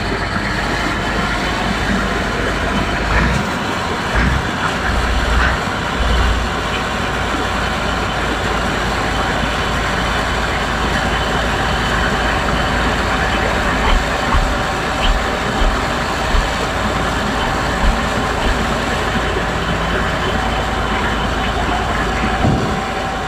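Heavy diesel machinery running steadily under load: a tracked excavator working alongside a loaded log lorry on a steep, slippery slope. A thin steady whine runs under the engine noise, and a few sharper knocks and clanks come in the second half.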